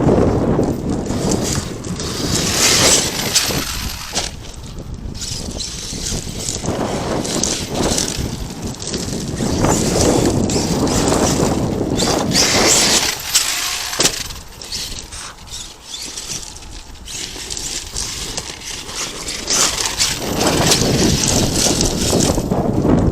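Arrma Kraton 8S electric RC truck driving over dirt and gravel: tyres crunching with scattered knocks and rattles from bumps, swelling louder and fading as it moves about, quietest in the middle.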